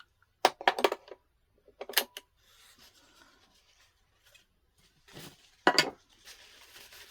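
Several sharp clacks and clinks of hard parts of a stringing machine being handled and knocked, in short clusters, the loudest about half a second in and again near the end, with faint rubbing between them.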